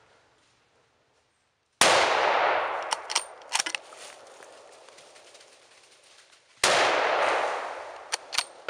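Two rifle shots from a Winchester Model 70, each a sudden loud crack that rolls away over about two seconds, each followed by a few sharp clicks.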